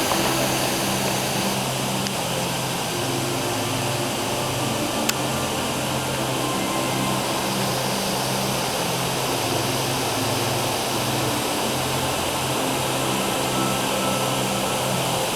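The Dzhurin waterfall's water falling in a steady, unbroken rush. A single short click sounds about five seconds in.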